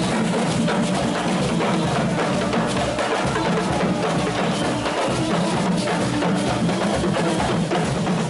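Carnival street band of skin drums (tambours à peau) and percussion drumming continuously as the group marches.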